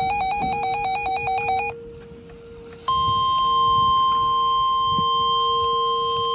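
An electronic alert tone warbling rapidly between two pitches cuts off about two seconds in. After about a second's gap, a steady high-pitched alarm tone starts and holds: the NOAA Weather Radio warning alarm tone that comes before a National Weather Service warning. A fainter, lower steady tone runs underneath throughout.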